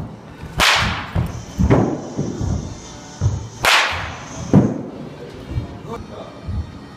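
Baseball bat hitting pitched balls: two sharp cracks about three seconds apart, each followed about a second later by a duller impact of the ball landing at the far end of the cage.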